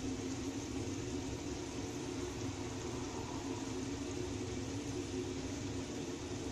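Unniyappam batter balls frying in oil in an unniyappam pan: a steady sizzle of bubbling oil, with a steady low hum underneath.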